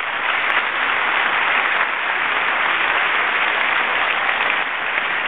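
Audience applauding steadily: dense, even clapping from a full hall.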